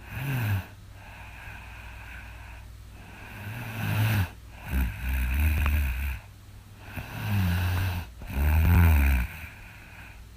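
A woman snoring: a short snore right at the start, then two pairs of deep snores, the second of each pair longer and louder.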